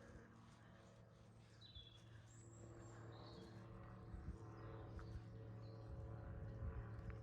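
A few faint, short bird chirps over a steady low hum, with soft low thuds building near the end.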